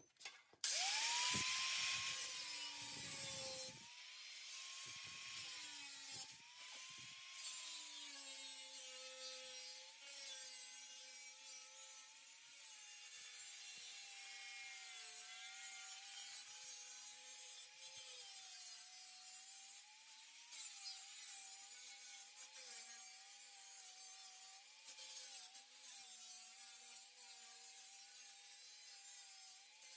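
A 4.5-inch angle grinder spins up with a rising whine about half a second in, then cuts through a sheet-steel stove pipe. The motor pitch sags and wavers as the disc bites into the metal, over a steady grinding hiss.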